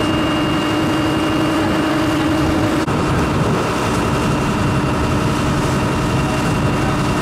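A small passenger boat's engine running steadily under way, a dense low drone. A steady hum sits over it for the first three seconds and then drops out.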